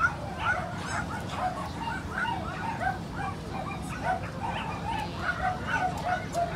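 Dogs yipping and barking without pause, short high calls several times a second.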